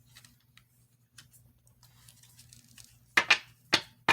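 Tarot cards being handled: faint rustling and light clicks, then a few short, sharp card snaps from about three seconds in. A faint steady hum runs underneath.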